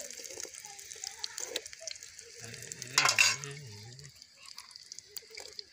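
Oil sizzling steadily in a pan as whole boiled potatoes deep-fry. There is a brief loud clatter about three seconds in and a low wavering hum in the background around the same time.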